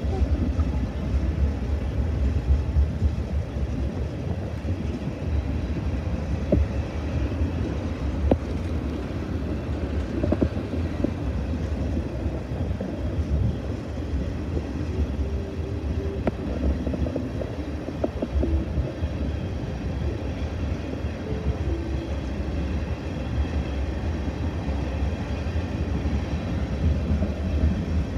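A string of railroad tank cars rolling past: a steady low rumble of steel wheels on rail, with a few sharp clicks from the wheels now and then.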